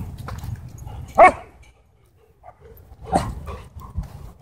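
Dogs barking in short, sharp single barks: a loud one about a second in, a softer one around three seconds, and another loud one at the very end.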